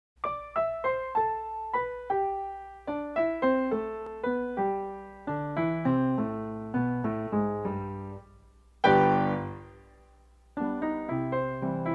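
Piano music: a quick run of single struck notes, a loud chord about nine seconds in that rings out and fades, then the run of notes starts again.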